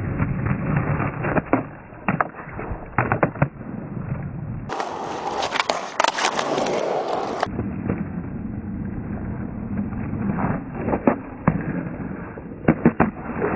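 Skateboard wheels rolling on rough asphalt, broken by clusters of sharp wooden clacks: the tail popping, the wheels or tail knocking a concrete parking block, and the board landing as no-complies are tried off the block.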